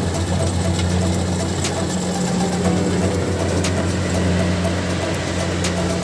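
Kubota DC70 Plus combine harvester's diesel engine running steadily while harvesting rice, a constant low drone, with light clicks about every two seconds.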